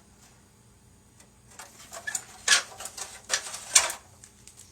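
Small plastic model parts being handled on a table: a run of short clicks and rustles starting about a second and a half in, loudest twice near the end.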